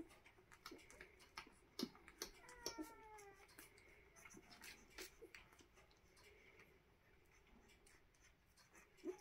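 Newborn Doberman puppies nursing: faint, scattered suckling clicks, and one short falling squeak from a puppy about two and a half seconds in.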